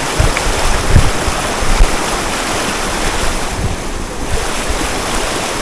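A waterfall rushing steadily, with wind buffeting the microphone in a few low thumps.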